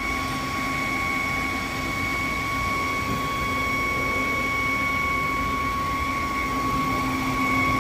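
Car engine idling with a steady, high whistle from under the hood, a pure tone with a fainter overtone above it. The whistle comes from the defective oil separator (PCV), whose leaking diaphragm lets air be sucked through.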